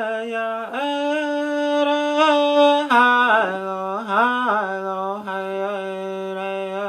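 A man singing solo and unaccompanied, the opening of a round dance song: long held notes without clear words. The pitch steps up about a second in, slides down and wavers around the middle, then settles on a long low held note.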